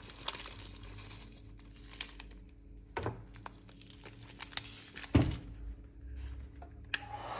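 Crinkling and handling of plastic, with a few sharp knocks, the loudest about five seconds in.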